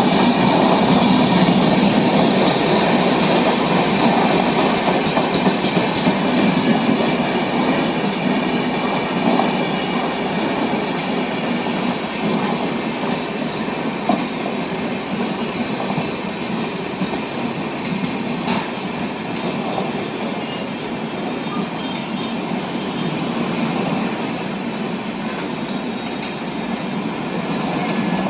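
Passenger train running past on the tracks, its wheels clattering over the rails with a steady rumble that is loudest at first and slowly fades.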